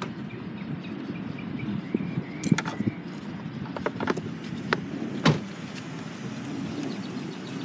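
A bike-rack strap hook being pushed and worked into the gap at the edge of a car's trunk lid: a few scattered sharp clicks and knocks, the loudest about two and a half seconds in and again just after five seconds.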